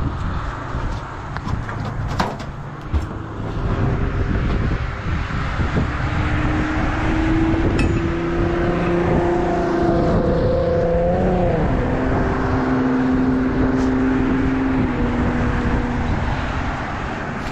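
A heavy machine's engine running under a rumbling background. A pitched hum holds steady, bends about two-thirds of the way through, then settles at a lower pitch, as the machine changes speed while working.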